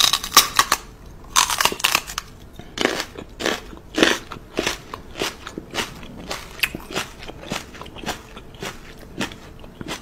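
Crunching and chewing of a crisp snack as a small dog bites pieces off a treat held in a woman's lips: a quick, irregular run of sharp crunches, loudest at the start and about four seconds in.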